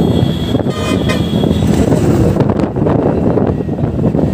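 Steady riding noise from a TVS NTorq 125 scooter on the move, its engine and wind rush mixed together, with a vehicle horn tooting briefly in the first second or so.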